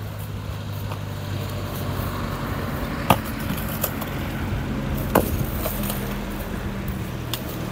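Two sharp strikes of a pickaxe on concrete blocks, about two seconds apart, over the steady hum of an engine running.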